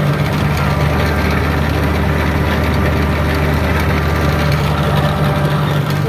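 New Holland TR96 combine's diesel engine idling steadily.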